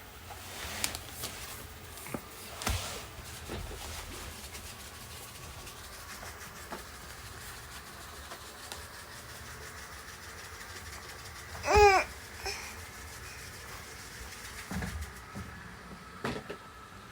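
Robot vacuum cleaner running with a steady whir, with a few scattered knocks. About twelve seconds in, a baby gives one short, loud squeal.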